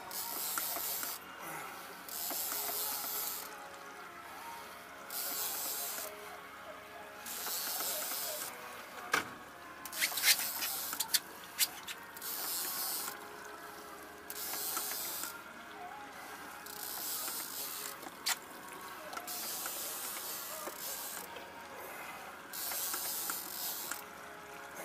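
Conventional big-game fishing reel being cranked in spells of about a second, roughly every two seconds, as a hooked cubera snapper is pumped up: a whirring hiss from the reel and line each time the handle turns. There are a few sharp clicks near the middle.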